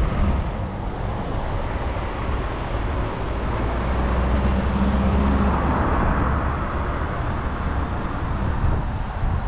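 Riding a bicycle along a city street with an action camera: a steady low rumble of wind and road noise on the camera's microphone, with cars running nearby in light traffic and a swell of noise about halfway through.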